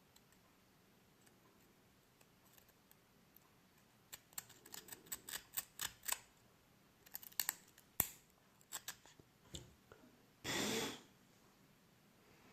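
Small clicks and taps of hands handling small parts, quiet at first and then coming in an irregular run for several seconds. Near the end comes a louder rubbing noise about half a second long.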